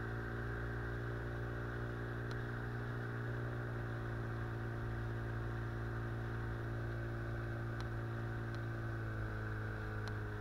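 Small outboard motor on an inflatable boat running steadily at cruising speed, its pitch shifting slightly about nine seconds in.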